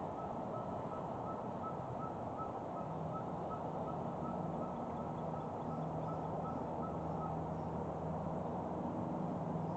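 Steady wind noise on the microphone, with a faint rapid series of high pips, about three a second, that stops about three-quarters of the way through, and a low steady hum coming in about a third of the way in.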